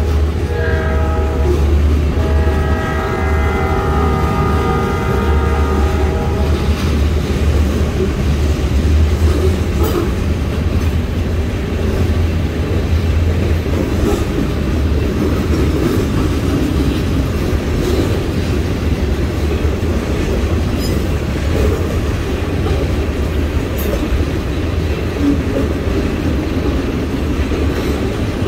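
Train horn sounding a multi-note chord in two blasts, the second lasting about five seconds. Then the steady rumble and clatter of the passing train's cars.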